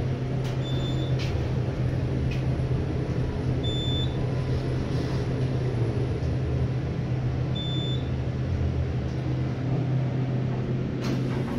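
Phoenix modular traction elevator car travelling upward, heard from inside the cab as a steady low hum, with three short high beeps a few seconds apart and a click near the end.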